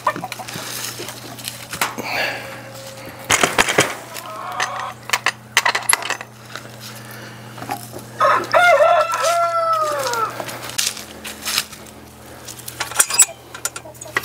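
A rooster crowing once, a long call about eight seconds in whose pitch falls away at the end, with hens clucking. Scattered knocks and clicks of plastic water jugs being handled, one louder knock a few seconds in.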